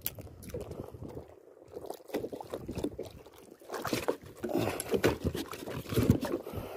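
Shallow seawater sloshing and lapping close to the microphone, with irregular knocks and rustles as the rod and a floating box are handled in the water.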